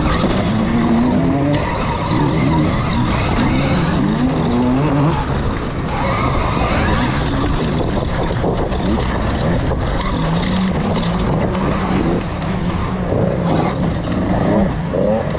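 Electric KTM dirt bike ridden on a dirt motocross track: a steady rush of wind and tyre noise, with a pitched drone that repeatedly rises and falls in pitch.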